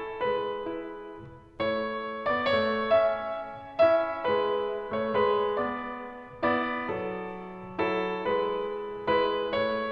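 Background piano music: struck chords that fade away, a new chord about every second.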